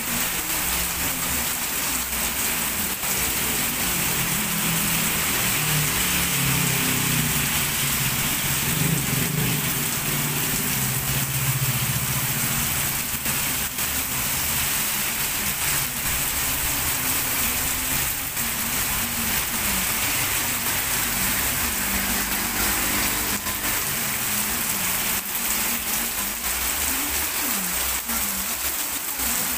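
Heavy rain pouring steadily onto a wet road, with vehicles driving through it; the low sound of engines swells through the middle and again near the end.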